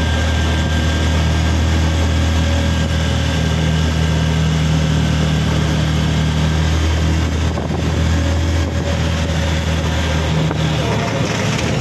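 Vehicle engine running steadily under load, heard from inside the cabin while climbing a winding mountain road, a constant low drone with road noise. The deepest part of the engine hum drops away near the end.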